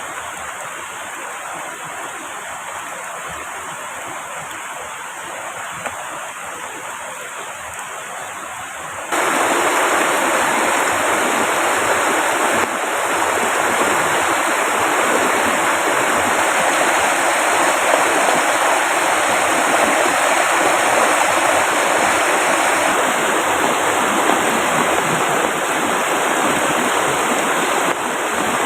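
Steady rushing water that gets abruptly louder about nine seconds in.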